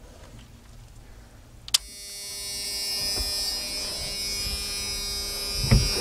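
A click, then an electric fan motor spins up over about a second and runs on with a steady buzzing whine.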